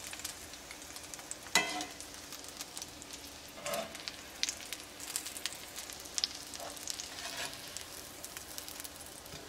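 Breaded coconut-crusted salmon fillets sizzling and crackling in hot oil in a cast-iron skillet as they are turned with metal tongs. One sharp, briefly ringing clack comes about a second and a half in, with lighter knocks a couple of seconds later.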